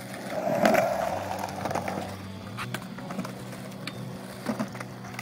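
Skateboard wheels rolling over a concrete skatepark ramp, with a rough rolling rush in the first two seconds and a few sharp clacks of the board scattered through.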